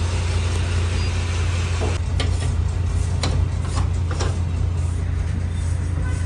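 Steady low machine hum with a faint even hiss, as diesel is pumped through a hose into a ferry boat's fuel tank; a few faint clicks come around the middle.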